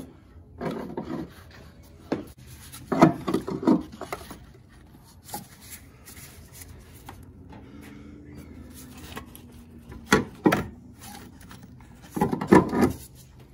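Upper engine mount being worked free and lifted out past the A/C line by gloved hands. A few short bursts of knocking and scraping, loudest about three seconds in and again near the end.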